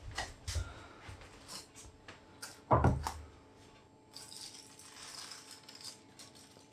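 Metal loaf tins knocking and clinking as a tin is lifted off another and set down on a steel-bar trivet, with one louder clank about three seconds in. Then aluminium foil crinkles as it is peeled off the tin.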